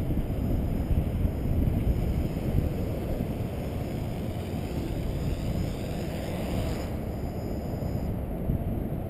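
Wind buffeting the microphone in a steady low rumble.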